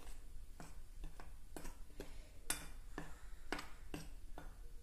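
Steel spoon stirring dry flour in a glass bowl, the spoon clinking lightly against the glass at uneven intervals, about two clinks a second.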